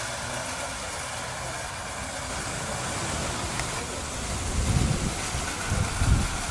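Aster live-steam Schools class model locomotive running with a freight train of tinplate and wooden wagons on garden track: a steady running noise of steam and rolling wheels, with two short low rumbles near the end.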